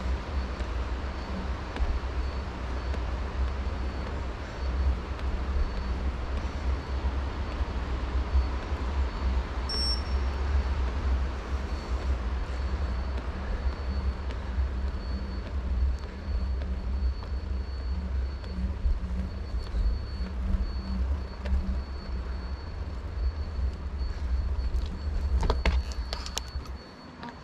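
Wind rumbling steadily over a GoPro action camera's microphone with its wind reduction switched off, during a bicycle ride. A faint steady high tone sits over it, and a few sharp clicks come near the end.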